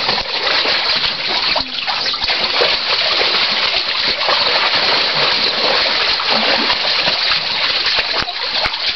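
Water splashing and sloshing without a break as a child moves about in a small inflatable paddling pool.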